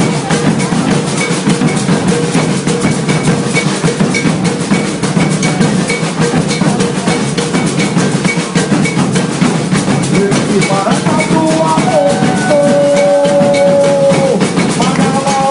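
Maracatu percussion: dense, fast drumming with a repeating high tick running through it. A pitched melody line comes in about ten seconds in.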